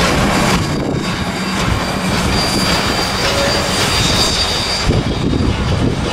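Cars of the Southern Pacific 4449 steam train, its tenders included, rolling past on the curved wye track: a steady rumble of steel wheels on rail, with a thin, high squeal from the wheels on the curve.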